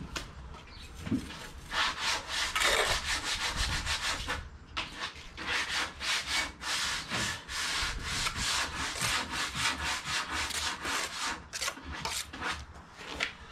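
Quick, repeated hand scraping strokes on brickwork, several a second, with a short break about four and a half seconds in.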